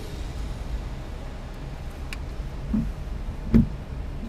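Low steady rumble of a car in slow stop-and-go traffic, heard from inside the cabin. There are a few short clicks, and a low knock about three and a half seconds in is the loudest sound.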